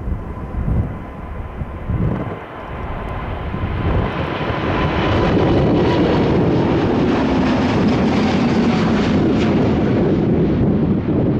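Jet airliner's engines on landing approach, growing louder over the first few seconds and then holding a loud, steady rushing noise, with a faint whine and a low hum that slides down in pitch as the aircraft passes. Wind gusts buffet the microphone near the start.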